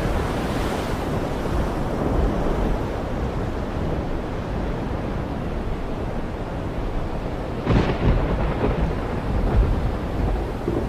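Thunderstorm sound: a deep rolling rumble over a steady rushing noise like rain, with a sharper crash of thunder about three-quarters of the way through.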